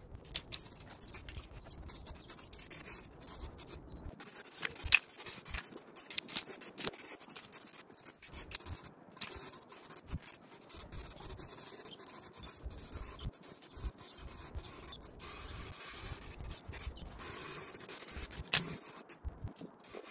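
Aerosol rattle can of U-Pol etch primer spraying in long hissing passes with short pauses between them, with a few sharp clicks.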